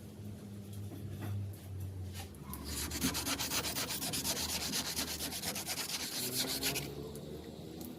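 Rapid rasping scrape, like sanding or filing, in fast even strokes, starting about two and a half seconds in and stopping shortly before the end.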